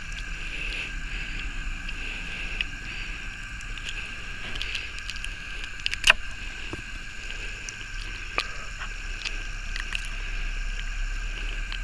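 Steady night chorus of calling animals from the marsh, holding two high even tones, with scattered faint clicks from hands working a gutted tuvira knifefish and one sharper click about six seconds in.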